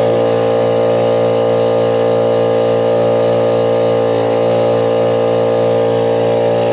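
Chinese piston air compressor running with a steady, even hum.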